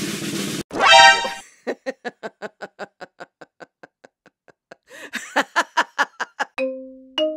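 Comedy background music: a quick, even run of short plucked notes, about five a second, that fades almost away in the middle and comes back louder, ending in a few held notes.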